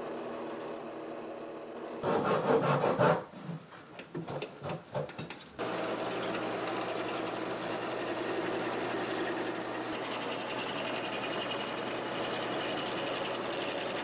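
Drill press running, its bit boring into the end of a wooden finial blank about two seconds in. From about five and a half seconds on, a wood lathe runs steadily while a turning tool cuts the spinning blank, throwing shavings.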